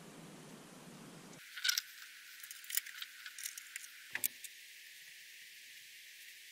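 Faint, scattered clicks and taps of a hex screwdriver and small parts being handled on a wooden workbench during the hand assembly of a micro FPV quadcopter frame. The clicks come in a loose run of about three seconds, starting about a second and a half in.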